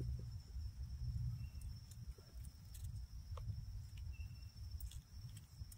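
Quiet outdoor ambience: an uneven low rumble on the microphone, a faint steady high tone, and two brief faint high peeps, about one and a half and four seconds in.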